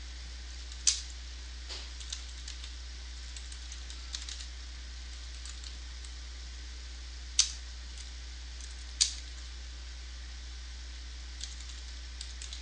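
Computer keyboard typing: scattered, sparse keystrokes, three of them much louder clicks, over a faint steady electrical hum.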